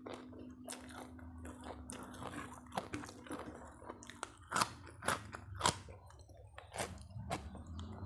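A person chewing and crunching crisp food close to the microphone, with irregular sharp crunches several times a second.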